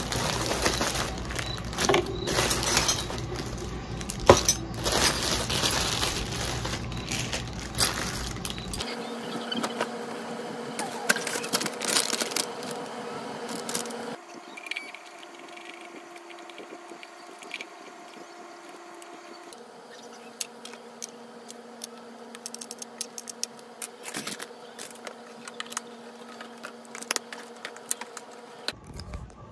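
Plastic zip bag crinkling and small plastic parts clicking as caster wheels are unpacked and fitted to a wicker basket. The first part is louder and busier; after that come quieter, scattered handling clicks over a faint steady hum.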